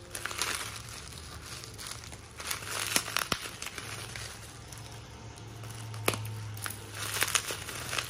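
Plastic bubble wrap crinkling and rustling in irregular bursts as it is unwrapped by hand from a lighter, with a couple of sharp clicks.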